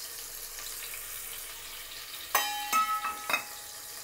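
Chopped onions sizzling in hot oil in an aluminium pot, a steady high hiss. A little past the middle, a handful of sharp metal clanks with a ringing tone, metal striking the pot.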